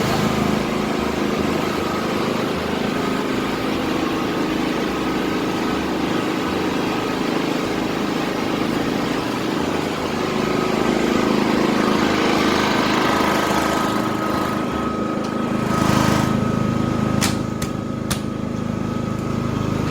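Kirloskar iGreen petrol portable generator's engine running steadily, recorded on a mobile phone as a sound test; its running noise is very low. A few sharp clicks come near the end.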